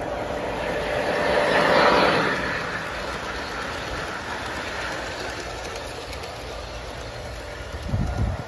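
Large-scale model train, a diesel locomotive pulling passenger cars, running past on the track with wheels rolling over the rails, loudest as the locomotive goes by about two seconds in. A low thump near the end.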